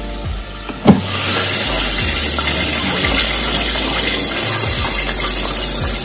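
A sharp click about a second in as the air fryer's basket is pushed home, then hot oil in a deep pot sizzling steadily around frying chicken pieces.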